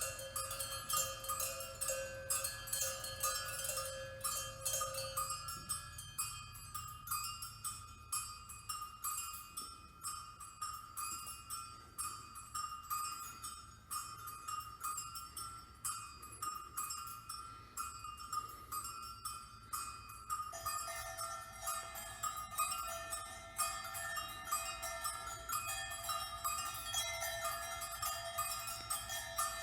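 Small bells or chimes tinkling in a rapid, irregular stream over held ringing tones. The ringing pitches change a few seconds in and again about two-thirds of the way through.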